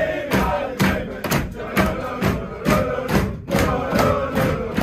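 A football team chanting together in a dressing room after a win, with rhythmic hand claps and slaps on the walls and lockers at about two beats a second.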